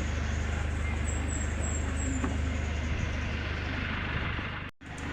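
A steady low mechanical hum with a background of noise, like a running engine or motor, that cuts out abruptly for a moment near the end.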